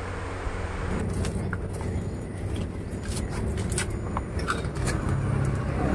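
Potted plants being handled and shifted, with scattered light clicks and knocks of plastic pots and rustling leaves over a steady low hum.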